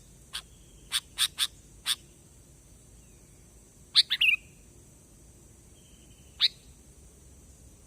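Sooty-headed bulbul (kutilang) calling: a quick run of short, sharp chips in the first two seconds, then a brief falling chatter about four seconds in and one more sharp note at about six and a half seconds, over a steady faint high hiss.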